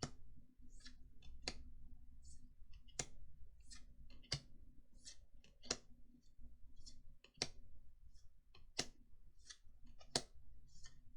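Digimon trading cards being flicked through one at a time, each card giving a sharp snap about every second and a half, with softer ticks of card stock sliding in between.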